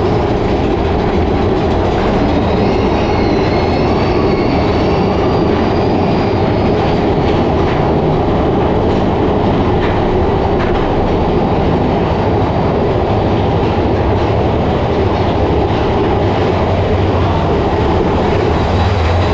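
Mine-train roller coaster running along its track: a steady, loud rumble and clatter of the train's wheels and cars.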